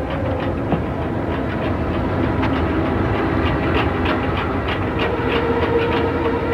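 A steady rumble with regular clicking about four times a second, like a machine or vehicle running.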